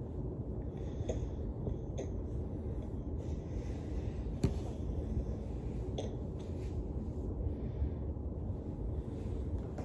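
A woman's heavy breathing as she lies limp after a seizure, over a steady low rumble. A few soft clicks come through, the sharpest about four seconds in.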